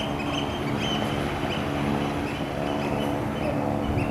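A steady low engine hum, with short high chirps repeating over it about once or twice a second.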